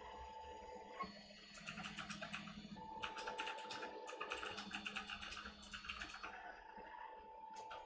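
3D printer's stepper motors whining in steady tones that switch and shift pitch as the print head changes direction, with a fast run of ticking from about one and a half to six seconds in, while it lays down the first layers of a small cube.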